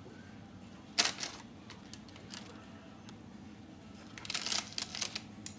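Chicken wings being flipped on a baking pan: a sharp clack about a second in, then a flurry of clicks and scrapes of a utensil against the pan near the end, over a low steady hum.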